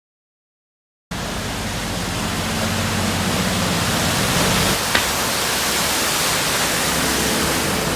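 Dead silence for about a second, then a loud, steady rushing noise starts abruptly, with a faint low hum beneath it and a single short click about five seconds in.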